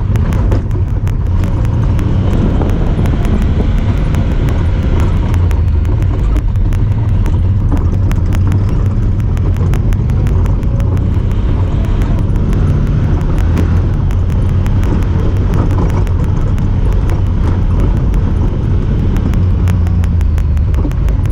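Honda Talon 1000R side-by-side running steadily under way: a constant low engine and drivetrain drone that holds level without revving up or down, with a fast, faint ticking over it.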